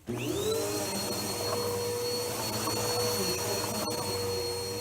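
Vacuum cleaner motor switched on, spinning up with a quickly rising whine that settles into a steady high-pitched whine over the rush of air, then running steadily.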